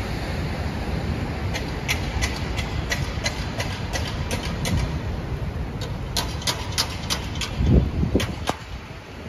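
Steady rumble of city street traffic, with a walker's footsteps ticking about three times a second from about a second and a half in. There is one brief low thump near the end.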